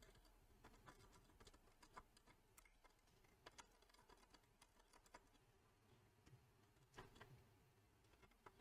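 Near silence, with a few faint, scattered clicks and taps from a small hand tool and fingers working on the underside of a circuit board.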